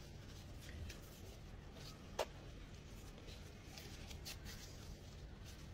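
Faint soft rustling of thin lavash sheets being handled and pressed into an oiled pot with gloved hands, and one sharp click about two seconds in.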